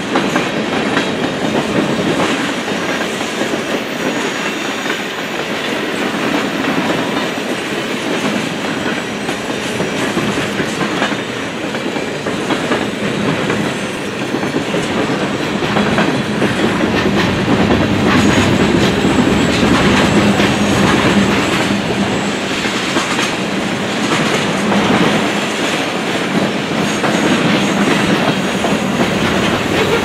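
Freight cars of a long mixed train (boxcars, then centerbeam flatcars and tank cars) rolling past at speed: a steady rumble of wheels on rail with a constant clickety-clack of wheels over the joints, a little louder past the middle.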